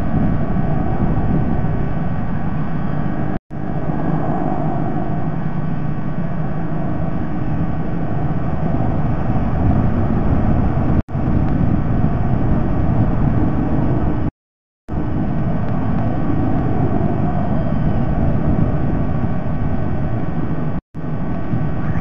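Steady low rumble of outdoor background noise picked up by the nest camera's microphone, cut by four brief silent dropouts in the signal, the longest about half a second long around fourteen seconds in.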